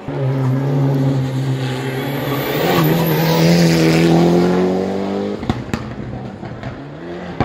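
Race car engine accelerating hard uphill, its pitch rising steadily for about five seconds. The pitch and level then drop abruptly, followed by a few sharp cracks.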